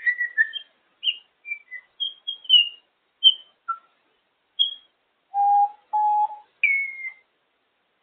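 African grey parrot whistling: a quick string of short high chirps and whistles, then about five seconds in two longer steady lower notes, and a falling whistle near the end.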